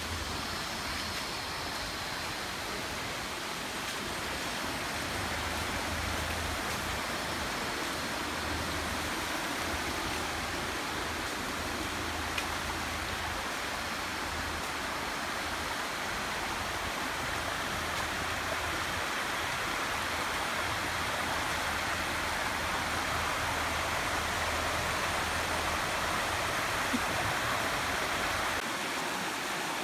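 Shallow forest stream running over rocks and small cascades: a steady rush of water, a little louder near the end.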